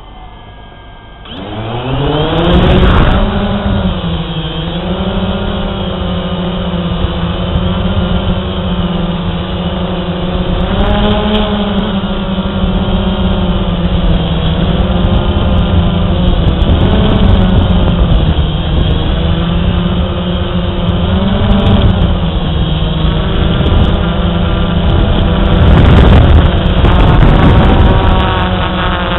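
DJI Phantom quadcopter's motors and propellers humming. The pitch rises as they spin up about two seconds in, then wavers up and down as the drone holds and adjusts its position.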